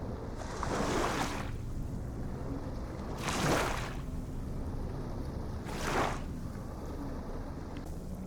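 Small waves washing in with a hiss three times, about two and a half seconds apart, over a steady low rumble of surf.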